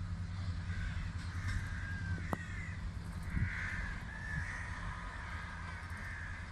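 Crows cawing several times in harsh, wavering calls, over a train's steady low rumble.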